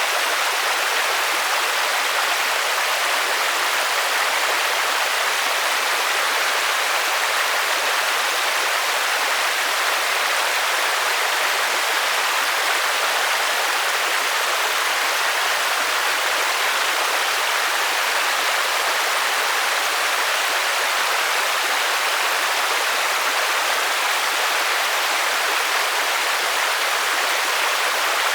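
Steady rainfall: an even, unbroken hiss with little low rumble and no single drops standing out.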